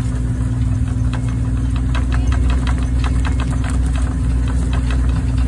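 Engine of an open safari game-drive vehicle running steadily, with a low hum, heard from inside the vehicle. Many short rattles and clicks come through over it.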